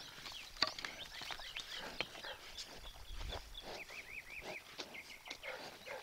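Small birds chirping and singing, with a quick repeated trill about two-thirds of the way in, over scattered sharp clicks and knocks from cattle moving and feeding.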